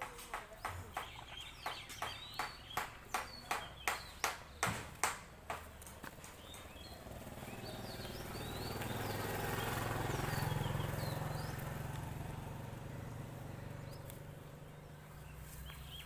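A steady run of sharp knocks, about three a second and growing louder, for the first six seconds; then a vehicle passing on the road, its noise and low hum swelling to a peak and fading away. Birds chirp in the background.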